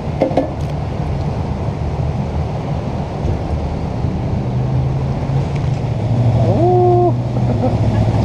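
Jet boat engine running steadily under rushing water and wind noise on the microphone, its hum a little stronger in the last couple of seconds. A brief rising tone sounds about six and a half seconds in.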